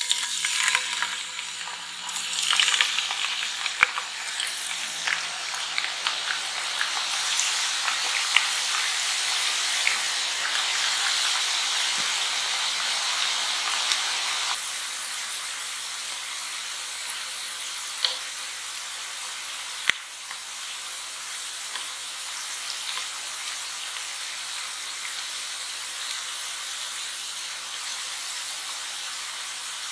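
Waffle-cut potato slices deep-frying in oil, a steady sizzle with crackling that starts sharply as the slices go in and eases slightly about halfway through. Two sharp clicks in the second half.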